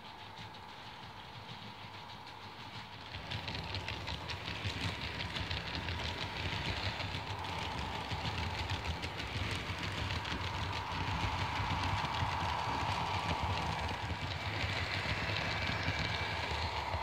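Märklin H0 model train running past on its track: a steady motor whine with the wheels clicking over the rail joints, getting louder about three seconds in as the train comes close.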